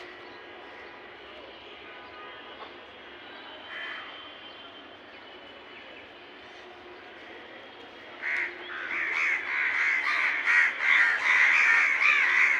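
A flock of birds at feeding food, quiet at first, then from about eight seconds in a loud outburst of many overlapping calls at once.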